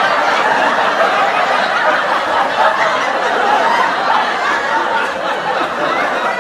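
Sitcom laugh track: a studio audience laughing together, many voices chuckling and laughing without a break at a steady level.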